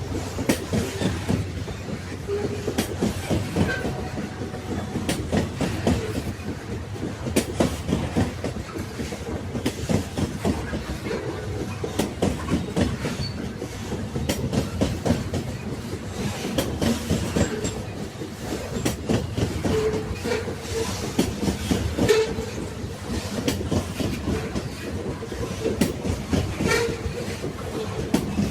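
Railway carriages rolling along the track: a steady low rumble with frequent clicks and knocks from the wheels running over the rails.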